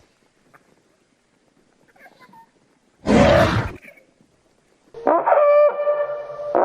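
Terror bird creature sound effect: a short, loud, harsh cry about three seconds in, then from about five seconds a long call held on one steady pitch.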